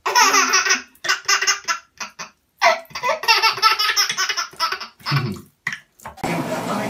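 A baby laughing hard, belly laughs in several runs with short breaks between. Near the end the laughter stops and a steady hiss takes over.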